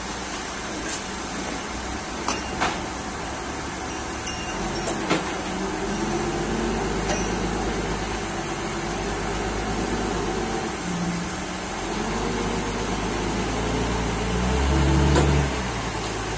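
Forklift engine running and manoeuvring close by, with several sharp metal clanks in the first few seconds. The engine swells louder for about a second near the end.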